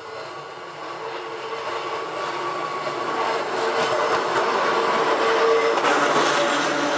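Hakone Tozan Railway Moha 1 electric railcar approaching and passing close by, growing steadily louder. It has a steady whine from its nose-suspended (tsurikake) traction motors and gearing, and its wheels click over the rails.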